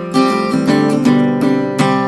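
Small-bodied acoustic guitar strummed in a steady rhythm, about four strokes a second, the chords ringing between strokes.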